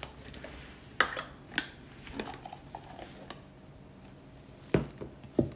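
Light clicks and knocks of a plastic black-pepper jar, its cap and a small spoon being handled over a mixing bowl, about five sharp taps, the loudest about a second in and two close together near the end.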